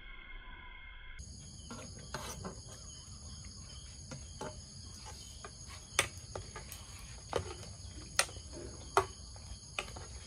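Crickets chirring steadily, starting about a second in, with sharp metal clinks of a ladle against a steel stockpot as it is stirred, three of them loud, near the end.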